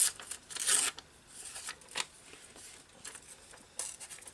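A printed book page being torn by hand in several short rips, with paper rustling between them; the loudest rips come in the first second.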